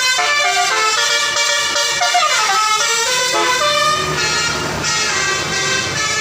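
Telolet multi-tone horn playing a quick tune of short stepped notes, with a falling glide about two seconds in. A vehicle engine rumbles underneath from about three seconds in.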